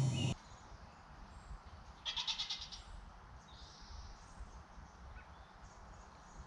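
Newborn Boer–Nubian cross goat kid bleating once about two seconds in, a short, high, wavering cry.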